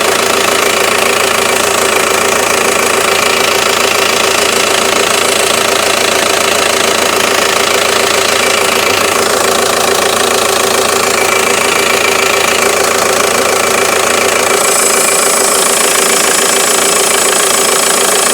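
Volkswagen 2.0 TDI diesel running with its turbo whistling and hissing, the pressure hose pulled off the N75 boost control valve. About three-quarters of the way through the hiss turns higher and brighter.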